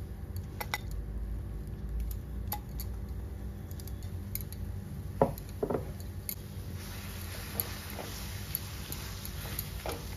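Scattered light clicks and clinks of kitchen utensils against an aluminium kadhai, with two louder knocks about five seconds in, over a steady low rumble. A faint hiss comes up about seven seconds in.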